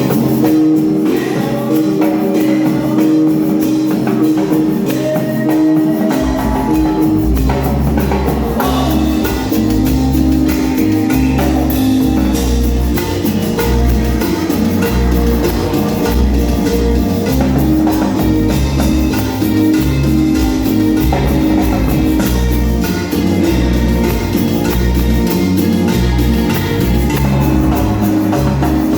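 Band music from a Mexican grupo with drums, percussion and guitar. The bass and full beat come in about six seconds in.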